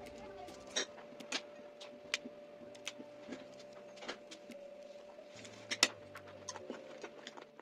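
Cauliflower being cut and broken into florets on a ceramic plate: irregular sharp clicks and taps of pieces and the blade against the plate, loudest about six seconds in.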